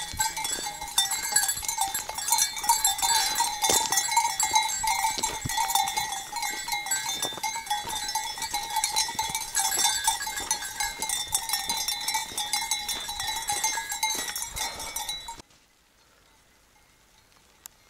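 Many bells worn by a flock of sheep jangling as the sheep walk and graze, cutting off suddenly about fifteen seconds in, with near silence after.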